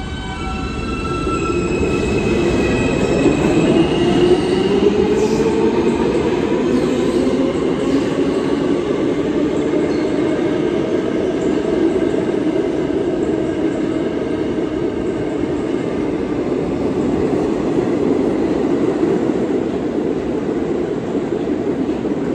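New York City subway train, an R160 E local, pulling out. Its traction motors whine up in pitch over the first several seconds. This gives way to the loud, steady rumble of cars rolling along the track, with some wheel squeal.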